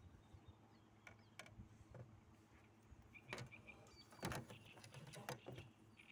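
Near silence with a faint steady low hum and a few scattered knocks and clicks of gear being handled aboard a small boat. The loudest knock comes a little over four seconds in.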